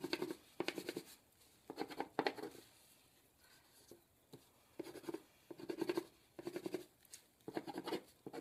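Crayon scratching on paper in several short bursts of quick back-and-forth strokes, with a quiet pause of about two seconds in the middle, as a sun and its rays are coloured in.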